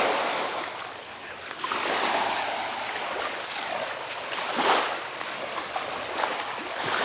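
Small surf washing up onto the sand and draining back, rising and falling in swells every couple of seconds, the loudest about two-thirds of the way through.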